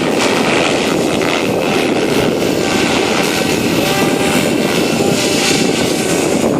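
ALZRC Devil 505 electric RC helicopter flying, a steady rotor and brushless-motor whine under heavy wind noise on the microphone.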